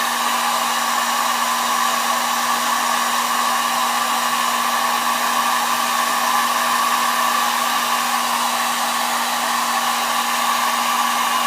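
Hot-air blower running steadily, a constant rush of air with a steady hum under it, heating the phone's glass to soften the adhesive beneath it.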